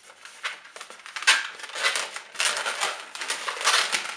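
Long red latex modelling balloon being twisted by hand into a bubble: the rubber rubs and squeaks against itself in short, irregular strokes, louder from about a second in.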